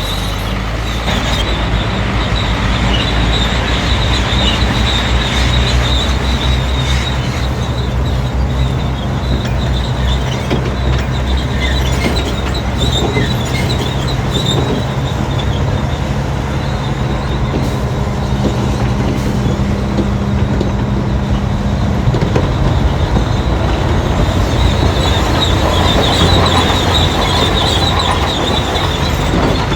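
Crawler bulldozer working: its diesel engine runs steadily, with the squealing and clanking of its steel tracks over it.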